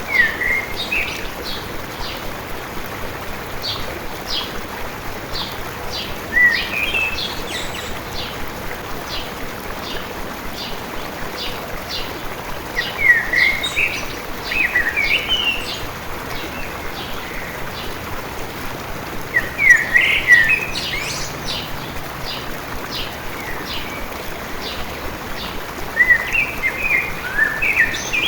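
Songbirds singing short phrases of gliding chirps every few seconds over the steady rush of a flowing stream, with a regular series of short, high ticks running underneath.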